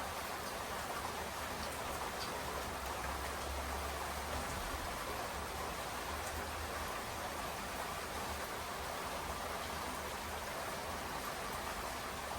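Steady rain falling, an even hiss with a few faint scattered drop ticks and a low steady rumble underneath.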